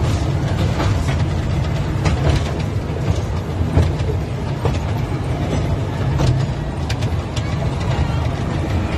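Mall amusement ride train running along its track, heard from aboard the carriage: a steady low rumble with irregular clicks and knocks from the carriage and wheels.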